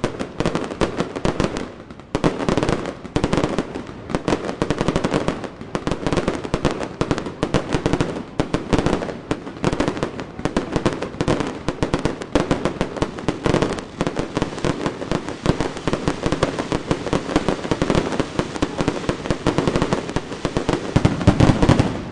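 Fireworks display: aerial shells bursting in a dense, unbroken barrage of rapid bangs and pops, loudest near the end.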